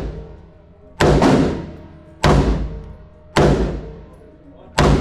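5.56 AR pistol with a 5-inch barrel firing four shots about a second apart, each a sharp loud report with a long decaying echo.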